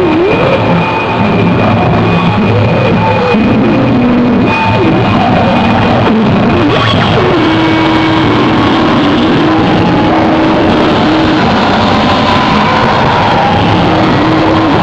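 Loud live noise music: a dense, distorted wall of amplified sound with wavering, sliding pitches, a held low drone in the middle stretch and a steady high whine over it.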